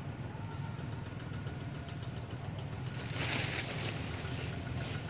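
Steady low rumble, with a burst of rustling noise lasting about a second, starting about three seconds in.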